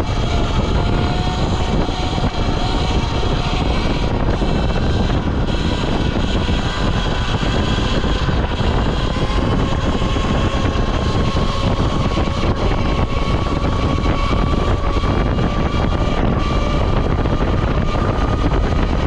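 Falcon Pro 79 electric dirt bike running at speed: a steady motor whine that rises slowly in pitch as the bike speeds up, under loud wind rushing over the microphone.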